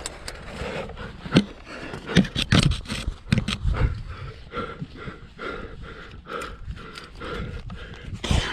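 A climber's heavy panting while squeezing up a tight rock chimney, with irregular knocks and scrapes of body and gear against the rock.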